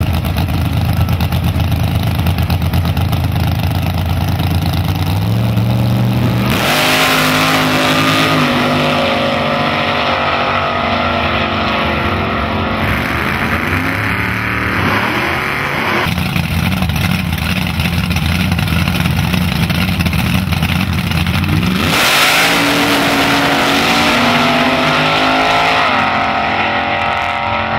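Gasser drag cars' engines running loudly at the starting line, then launching at full throttle about six seconds in and pulling away down the strip, the pitch climbing in steps with each gear change. A second pair launches the same way near the end.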